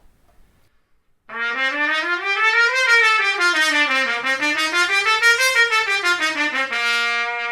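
Trumpet with a fibre straight mute, giving a muted tone a little softer than a metal straight mute. It plays a scale up and down twice in even steps, then holds a long low note.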